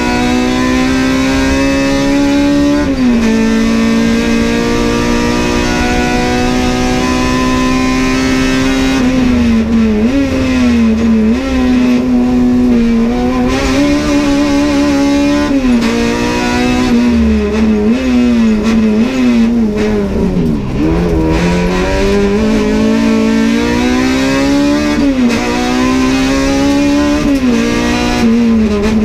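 Honda Civic race car's four-cylinder engine at high revs, heard from inside the cockpit. It pulls hard with an upshift about three seconds in, holds high, then rises and drops again and again through gear changes and lifts, with its deepest dip about two-thirds of the way through.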